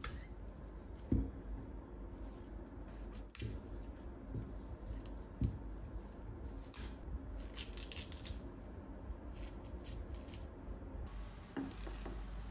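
Kitchen knife cutting a head of broccoli on a wooden chopping board: a few dull knocks of the blade on the board, then a run of crisp cuts through the stalks and florets, over a low steady hum.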